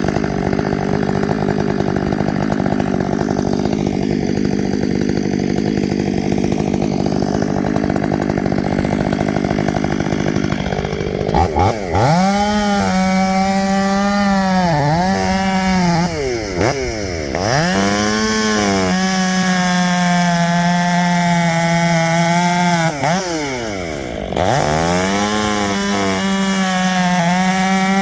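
Two-stroke chainsaw cutting a rotten poplar stump down close to the ground, held at a steady high pitch. From about halfway on, the engine speed drops and comes back up several times before settling high again.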